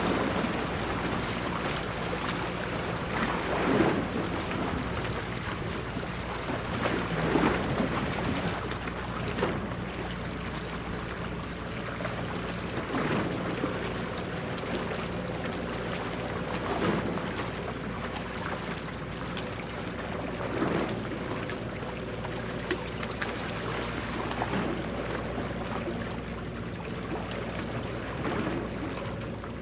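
Steady machinery hum from the helicopter destroyer JS Kaga (DDH-184) as it passes, holding several fixed pitches. Water washes against the shore every three to four seconds.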